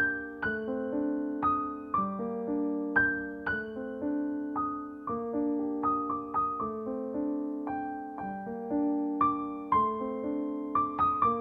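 Gentle solo piano music: single notes struck one after another, about two a second, each ringing and fading over held lower notes.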